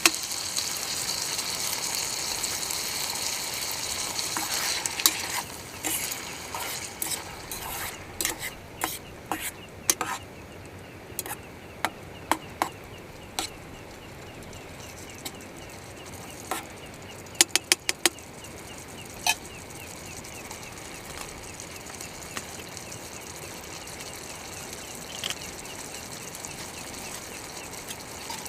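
Food sizzling in a pan, loudest for the first five seconds and then quieter. A utensil stirs and clinks against the pan in scattered sharp taps, with a quick run of four taps a little past the middle.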